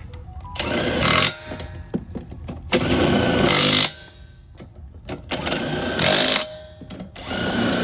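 A pneumatic impact wrench runs on tractor wheel nuts in four loud bursts of about a second each, with short pauses between them.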